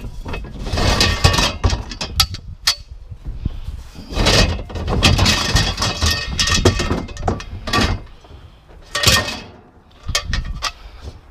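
Irregular knocks and clatter of scrap washer parts being handled and put away, with sharp hits mixed with longer rattling, quieter for a moment about eight seconds in.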